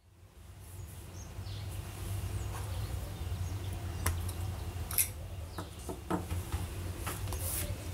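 Parker IM stainless steel fountain pen being uncapped by hand, with sharp metallic clicks of the snap-on cap about four and five seconds in, over a steady low hum.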